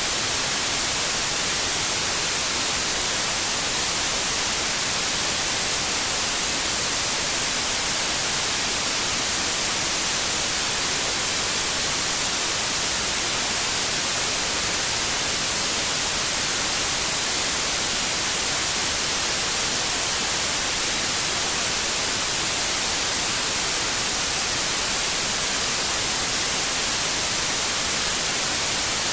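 Steady white noise: an even, unbroken hiss, brightest in the treble, with no change in level or character.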